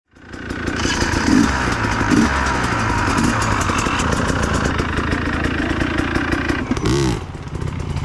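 Dirt bike engine running steadily, with a quick rev up and back down near the end.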